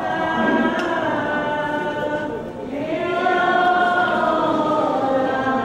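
A group of voices singing a slow hymn, holding long notes, with a brief breath between phrases about two and a half seconds in.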